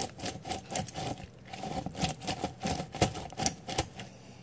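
Lemon half being twisted back and forth on the ridged plastic cone of a hand citrus juicer: rind rubbing against the reamer in irregular strokes, several a second.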